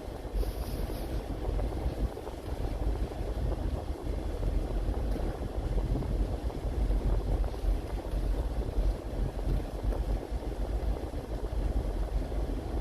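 Steady low rumble of a car driving on rain-wet roads.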